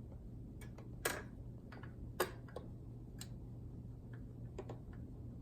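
Faint sharp clicks from a record player, the strongest about a second apart with smaller ticks between, over a low steady hum.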